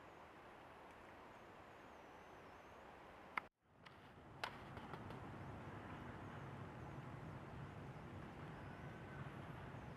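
Faint outdoor forest ambience: a soft, steady hiss with a little low rumble. It clicks and drops out for a moment about three and a half seconds in, and a few faint, thin high calls come and go.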